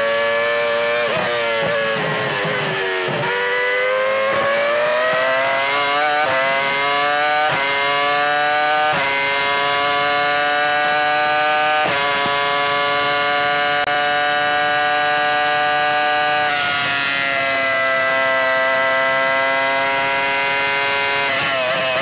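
Onboard sound of a Jordan Formula 1 car's V10 engine at racing speed. The pitch steps down through several downshifts at first, then climbs through the gears with a sharp drop at each upshift. It holds a high, flat-out scream for several seconds, then falls away as the throttle is lifted, with a brief rise and drop near the end.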